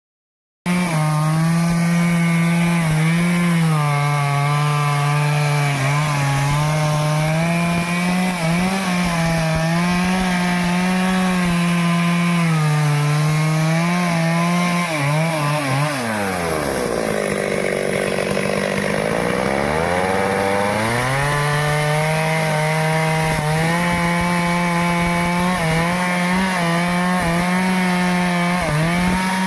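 A Stihl two-stroke chainsaw cuts through teak wood at high revs, its pitch wavering slightly as the chain loads. About halfway through, the engine speed falls steeply and stays low for a few seconds, then climbs back up to full revs and keeps cutting.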